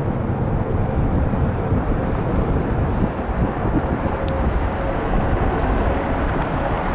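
Airbus A330-200 jet airliner's engines rumbling steadily on landing approach, with a faint steady whine, mixed with gusty wind buffeting the microphone.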